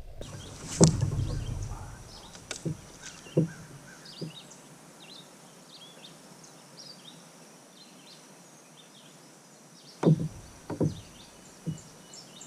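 Sharp knocks on a kayak, gear or paddle bumping the hull: a few in the first four seconds, then a cluster of three about ten seconds in. Between them it is quiet apart from faint, scattered high bird chirps.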